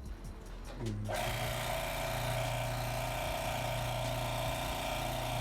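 Electric hydraulic pump for a cable crimper switching on about a second in and running with a steady hum, then shutting off near the end: a test run after filling it with hydraulic fluid.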